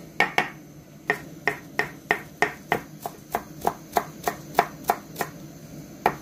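Kitchen knife chopping parsley on a wooden cutting board: the blade knocks on the wood in an even rhythm, about three strokes a second, with a short pause near the end.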